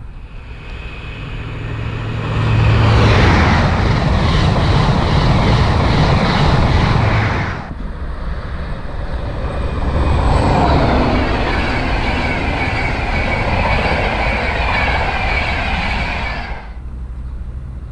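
Two fast trains passing in turn, each a loud rush of wheel and air noise. The first builds about two seconds in and cuts off suddenly at about the halfway point. The second, a red Virgin Trains East Coast express, swells up soon after and cuts off suddenly near the end.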